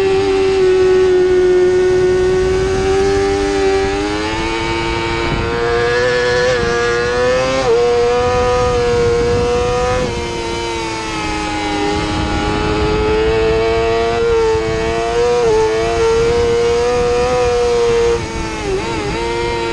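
2017 Yamaha YZF-R6's inline-four engine at high revs, heard from on the bike over rushing wind. The pitch rises and falls slowly, with a few brief sharp dips.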